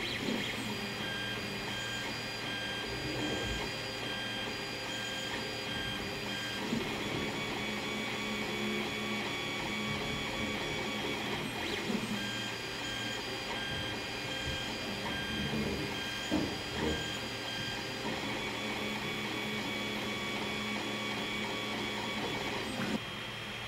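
Creality Ender-3 3D printer printing on its stock V1.1.3 mainboard: the stepper motors whine and warble in changing pitches as the head and bed move, over the steady hum of the fans. This board's non-silent stepper drivers are why the motors are this loud. Near the end the motor noise cuts off abruptly, leaving a quieter fan hum.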